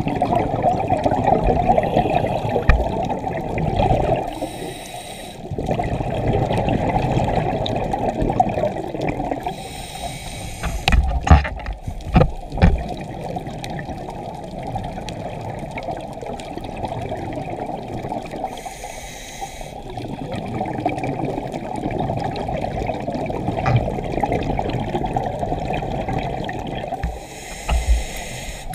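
Scuba diver breathing through a regulator underwater, heard from the camera: long spells of bubbling on each exhale, broken four times by a short hiss of inhalation. A few sharp knocks come about midway.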